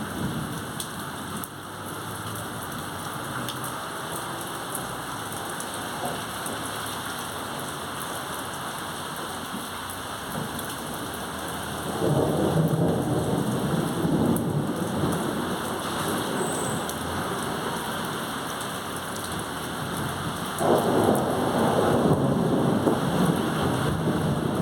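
Thunderstorm: steady heavy rain with thunder rumbling twice, about halfway through and again, louder, near the end.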